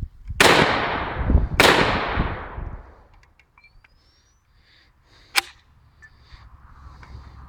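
Two shots from an AK-47 pistol in a bullpup stock, a little over a second apart, each followed by a long echo dying away. A single sharp click comes a few seconds later, with faint bird chirps.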